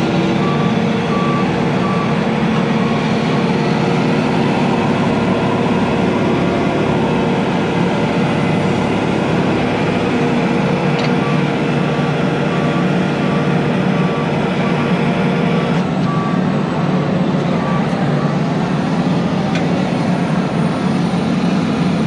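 Heavy-duty wrecker's diesel engine running steadily while winching, with an electronic warning beeper sounding in regular on-off beeps in two spells, near the start and again in the middle.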